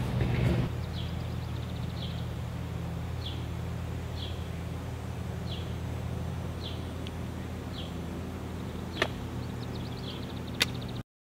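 A bird repeats a short falling chirp about once a second, with a quick trill now and then, over a steady low hum. A brief rustle at the start and two sharp clicks near the end; the sound cuts off suddenly just before the end.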